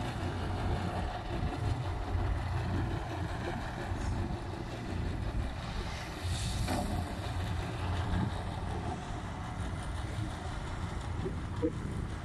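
Wheeled excavator's diesel engine running steadily with a low rumble as it digs and dumps sand. About halfway through there is a brief hiss of sand pouring out of the bucket.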